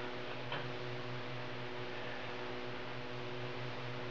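Steady electrical hum with a layer of hiss, the background noise of an old 1960 television recording, with a faint tick about half a second in.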